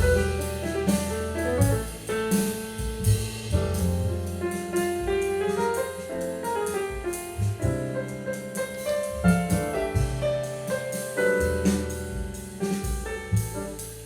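Piano-led jazz with bass and drums, played through Bose 301 Series I loudspeakers as a sound test.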